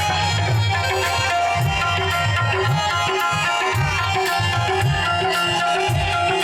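Instrumental passage of a Saraiki folk song: a hand drum plays a steady rhythm of low, pitch-bending strokes under sustained melody notes, without singing.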